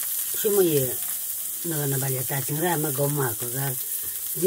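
Food sizzling steadily as it fries, with a voice talking in a few short phrases over it.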